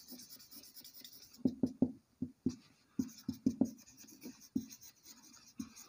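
Marker pen writing on a whiteboard: a quick, irregular run of short strokes and taps as a line of words is written out.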